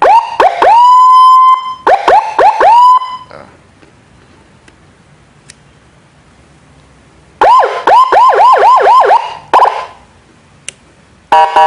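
Electronic siren module played through a horn loudspeaker, fired in short bursts: a tone that sweeps up and holds, a few quick rising whoops, then after a pause a fast run of rising whoops at about four a second, and near the end a brief steady multi-tone blast.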